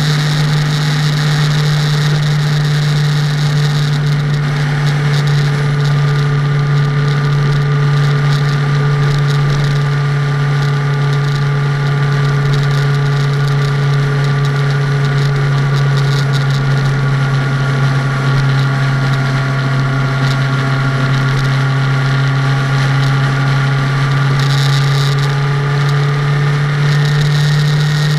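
Car driving at a steady cruising speed: a steady low drone of engine and road noise, with faint tones drifting slowly up and down in pitch.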